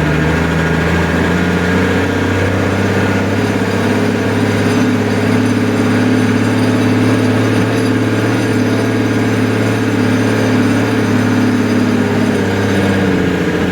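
A large engine running steadily, its note shifting slightly about two seconds in and again near the end.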